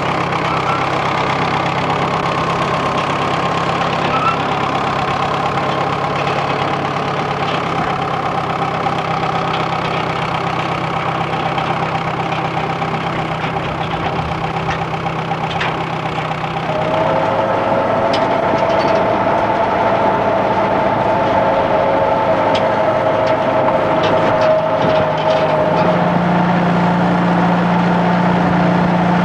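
Vehicle engine idling steadily; it grows louder and takes on a higher, steady note about 17 seconds in, with a deeper hum joining near the end.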